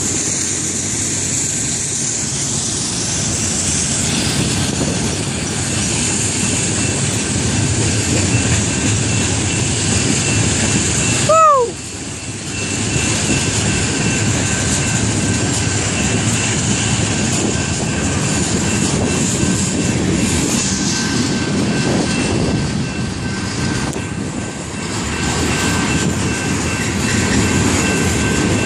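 Freight cars of a long BNSF manifest train rolling past: a steady rumble of steel wheels on the rails. A short falling tone sounds about eleven seconds in, followed by a brief drop in the sound.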